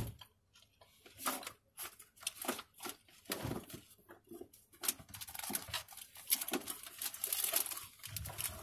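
Fast-food packaging being handled: paper and wrappers crinkling and rustling on and off, busier in the second half.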